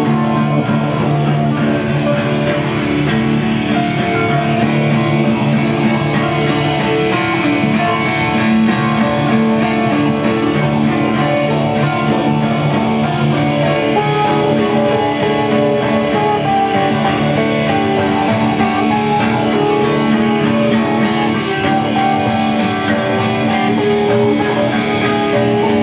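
An electric guitar and a steel-string acoustic guitar playing together, strummed and picked at a steady rhythm.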